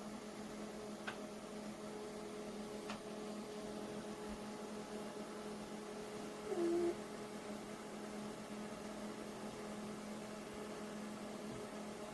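A steady electric hum with several tones layered in it. Two faint clicks come in the first three seconds, and there is a short pitched blip, the loudest sound, about six and a half seconds in.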